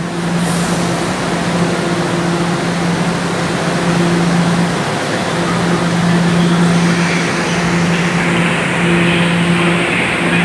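Toronto Rocket subway train pulling into an underground station: a steady low hum over the rumble of the train's wheels on the rails, growing a little louder as it comes alongside.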